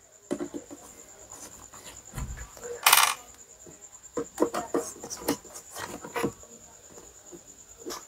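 Screwdriver unscrewing the back-panel screws of a Zebronics home theatre subwoofer cabinet: small metal clicks and scraping, with a dull knock just after two seconds and a sharper metallic clink about three seconds in.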